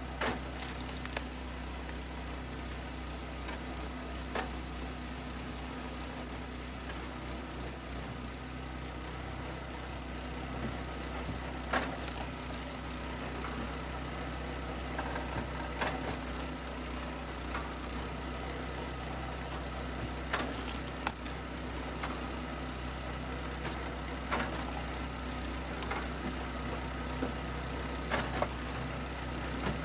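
SuperSplit kinetic log splitter's small gas engine running steadily, with sharp knocks every few seconds as the ram drives hardwood rounds onto the wedge and splits them.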